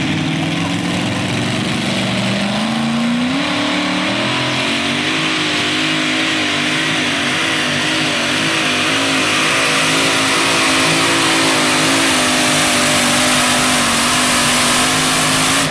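Supercharged Chevrolet V8 of a modified pulling tractor at full throttle under load. Its revs climb over the first few seconds, then hold high and steady with a slight waver as it pulls the sled.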